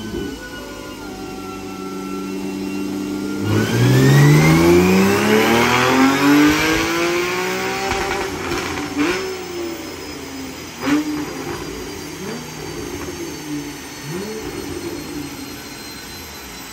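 Porsche 911 flat-six engine making a full-throttle pull on a chassis dyno. It runs steadily in gear, then about three and a half seconds in the revs climb steeply for about four seconds. After that it lifts off and winds down, with a few sharp cracks from the exhaust.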